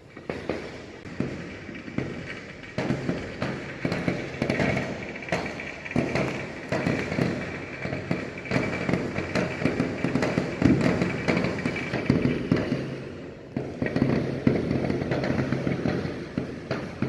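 Fireworks display going off in a rapid, continuous string of bangs and crackles, with a steady high whistle under them for much of the time. There is a brief lull about thirteen seconds in before the bangs resume.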